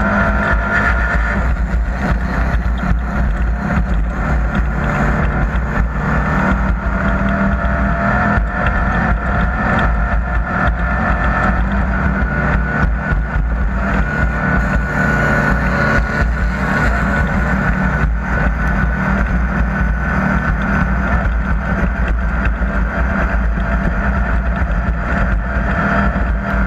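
Off-road race vehicle's engine running steadily and loudly without a break, with a constant low rumble and no clear revs up or down.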